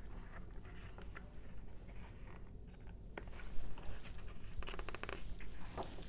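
Pages of a hardcover picture book being turned by hand: soft paper rustles and light taps, with a quick run of rustling about five seconds in, over a faint steady hum.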